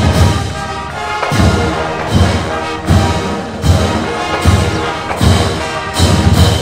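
A marching band's brass section and drumline playing loud, with heavy drum beats about every three-quarters of a second.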